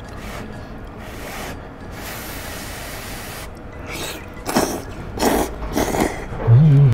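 A person slurping thick noodles: one long continuous slurp, then several short, sharp slurps about four to six seconds in, ending in a brief voiced "mm"-like sound.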